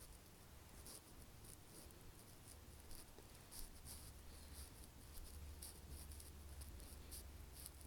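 Near silence: room tone with a faint low hum and many faint, irregular light ticks.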